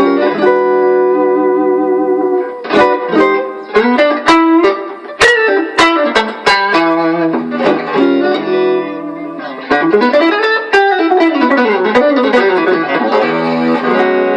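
Squier Stratocaster electric guitar with stock Alnico 5 single-coil pickups, played clean through a line boost, an Orange Squeezer-style compressor, an amp and a reverb pedal. It plays chords and picked single notes with sharp attacks, with notes sliding up and down about ten seconds in.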